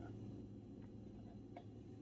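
Faint, soft ticks as a puff pastry sheet is peeled from its paper and laid flat on a bamboo cutting board, three light touches over a low steady hum.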